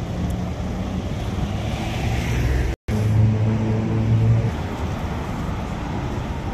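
Steady street traffic noise from cars on the road alongside. The sound cuts out completely for a moment just under three seconds in, then a louder low engine hum rises for about a second and a half before the steady traffic sound returns.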